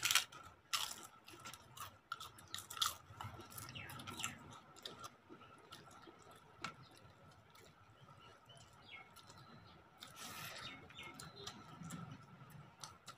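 Close-up eating sounds: crisp fried papad crunching as it is bitten, and chewing, in scattered sharp crunches.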